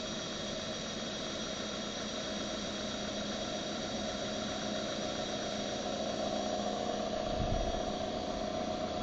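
Comet 3KVHD vertical mill's spindle running steadily with a whine while a center drill is fed into an aluminium wheel, with a brief low rumble about seven seconds in.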